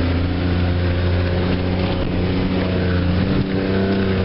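Ford F-150's 300 cubic-inch (4.9 L) inline-six engine running steadily under load as the truck pushes through deep snow drifts in four-wheel drive, its pitch rising a little past two seconds in and then easing back.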